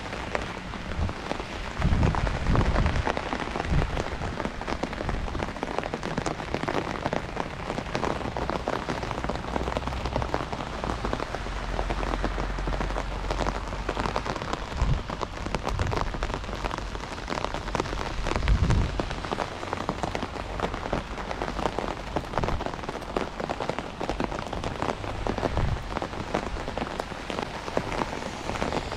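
Heavy rain falling: a steady hiss dense with the patter of drops. Two short low thuds, a couple of seconds in and again about two-thirds through.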